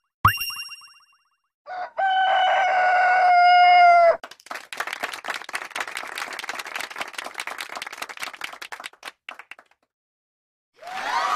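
A short ringing hit, then one long call held for about two seconds, followed by about five seconds of rapid irregular clicking. After a brief pause, a noisy crowd sound begins near the end.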